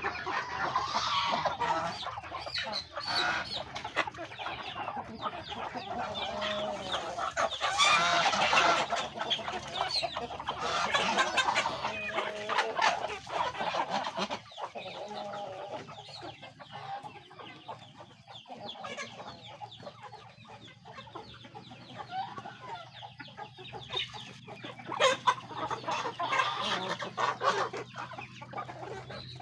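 A flock of chickens clucking and calling continuously, with louder bouts about eight seconds in and again near the end.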